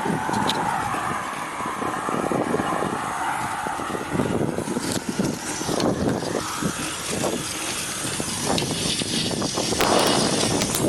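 Homemade e-bike driven by a converted washing-machine motor running under way, with a wavering whine, wind rushing over the microphone and scattered clicks.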